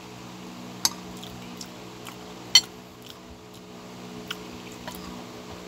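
Metal spoon and fork clinking and scraping against a ceramic bowl as food is scooped: two sharp clinks, a little under a second in and a louder one about two and a half seconds in, with lighter ticks between. A steady low hum runs underneath.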